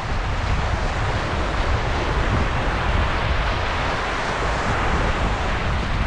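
Wind buffeting the microphone over the steady wash of surf.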